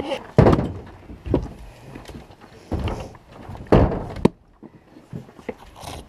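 Splitting maul blows on sawn tree rounds: several heavy wooden knocks at uneven intervals, the sharpest about four seconds in.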